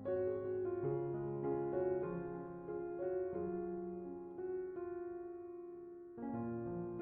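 Soft background piano music: slow sustained chords and notes, with a new chord struck about six seconds in.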